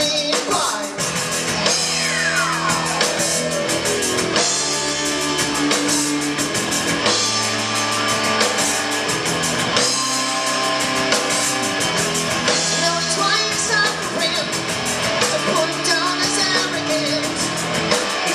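Live rock band playing: electric guitars, keyboards and drum kit, with a voice singing over them. A falling pitch sweep cuts through the mix about two seconds in.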